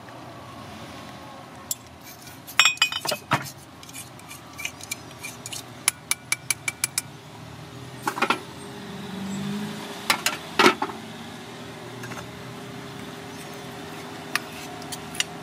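Metal cutlery clinking and scraping on a ceramic plate while eating: scattered clusters of short, sharp clinks.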